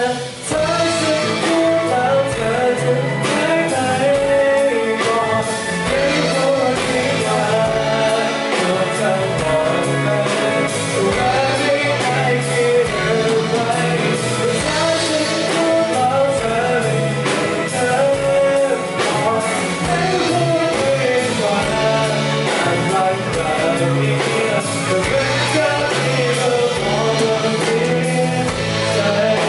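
A band performing a pop-rock song live, with singing over guitar and drums.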